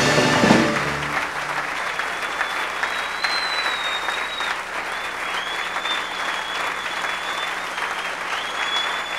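A theatre audience applauding as the live band's final chord dies away about half a second in. Long high whistles ring out over the clapping three times.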